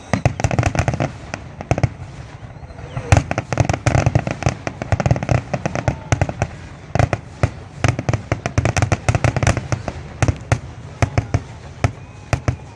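Fireworks finale: rapid volleys of sharp bangs and crackles, packed into dense clusters with brief lulls. Near the end the bangs come further apart.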